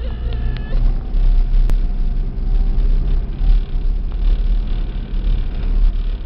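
Steady low rumble of the motor vehicle towing sleds by rope along a snow-covered road.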